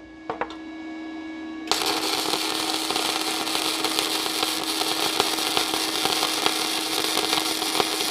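Flux-core (gasless) wire welding on 0.7 mm steel sheet with a Parkside PMSG 200 A1 inverter welder. After a couple of light clicks, the arc strikes a little under two seconds in and then runs on as a steady crackling sizzle with scattered spatter pops.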